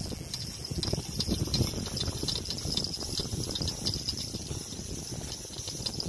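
Sea water lapping and sloshing against the rocks of a breakwater, an irregular churning sound.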